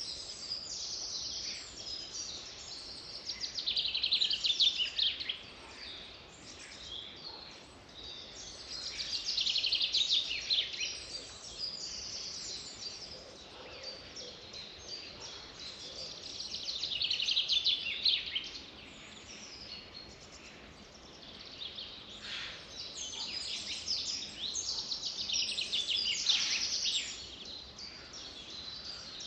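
Songbirds singing: high-pitched, rapidly trilled song phrases of two to three seconds that come back every six or seven seconds, with softer chirps between them.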